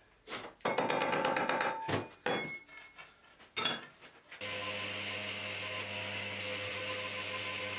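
A wooden axe haft knocking and rubbing against a steel axe head as the head is handled and tried on it, in irregular bumps and scrapes. About four and a half seconds in, a belt grinder takes over, running with a steady hum and hiss.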